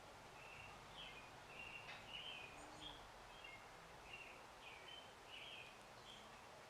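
A songbird singing faintly, a quick run of short chirps and warbled notes, over a steady outdoor background hiss.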